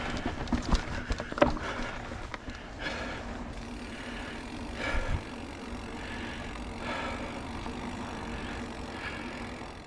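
Mountain bike rolling over singletrack: steady tyre and trail noise with the bike rattling, and a few sharp knocks in the first second and a half.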